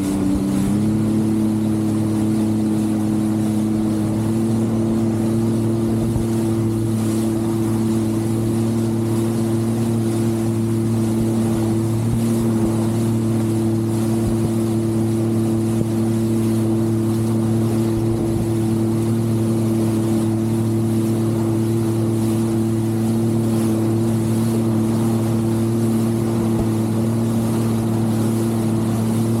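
Jet ski engine running at a steady speed, its pitch stepping up slightly about a second in and holding steady after that.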